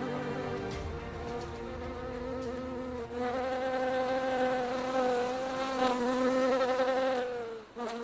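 A bee buzzing in one drawn-out, slightly wavering drone, louder from about three seconds in, dipping and breaking off briefly near the end. Soft music fades out beneath it within the first second.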